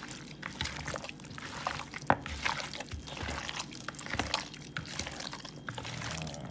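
A bare hand turning and rubbing seasoning into raw chicken pieces in a bowl: irregular wet slaps and squishes of meat, with one sharper slap about two seconds in.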